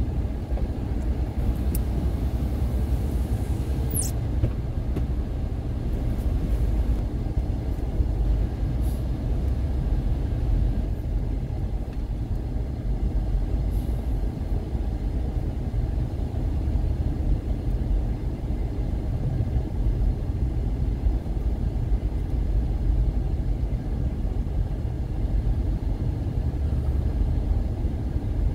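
Car driving along a road, heard from inside the cabin: a steady low rumble of engine and tyres, with a few faint ticks.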